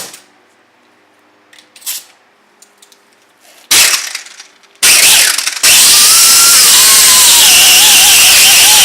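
Die grinder with a disc cleaning corrosion off a wheel hub: a short burst about three and a half seconds in, then run continuously and loud from about five seconds, its whine wavering and dropping in pitch as it bears on the metal. A few light knocks come before it.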